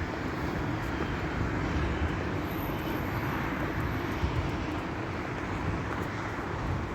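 Steady rumble and roar of a moving vehicle, even and unbroken.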